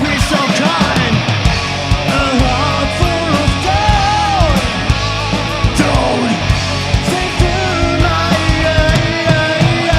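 Live rock band playing loud, punk-metal style: distorted electric guitars with bending lead lines over bass and steady drum hits.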